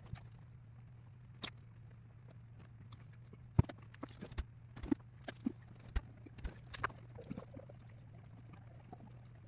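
Thin laser-cut plywood model parts clicking and tapping against each other and the table as they are handled: irregular sharp clicks, the loudest about three and a half seconds in and most between four and seven and a half seconds, over a steady low hum.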